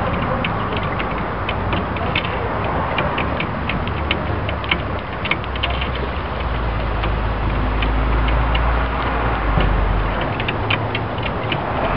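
Sparrows' beaks pecking seed off a glass table top: many rapid, irregular sharp taps on the glass, like Morse code, over a steady background hiss. About halfway through, a low rumble joins for a few seconds.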